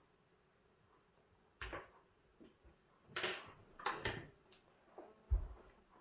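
Small screwdrivers clicking and scraping against a plastic E14 lamp socket, a handful of short clicks and one longer scrape. A dull thump near the end, the loudest sound.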